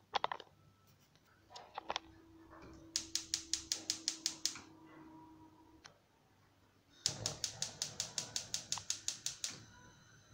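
Gas hob's electric spark igniter clicking rapidly, about seven clicks a second, in two runs of a second and a half and two and a half seconds, as a burner is being lit. A few light knocks come before the first run.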